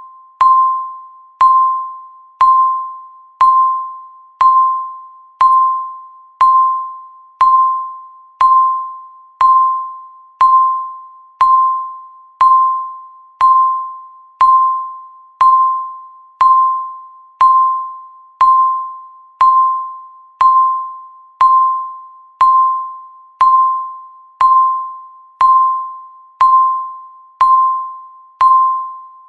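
Countdown timer beeping once every second, a steady run of identical single-pitch beeps that strike sharply and fade quickly, like a small chime.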